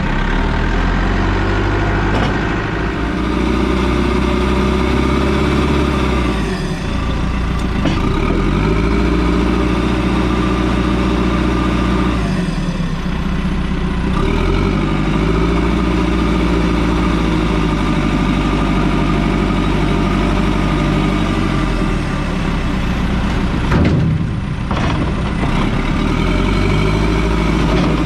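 Heavy diesel engine of working earthmoving equipment running steadily. Its pitch dips and recovers three times as it is loaded and throttled.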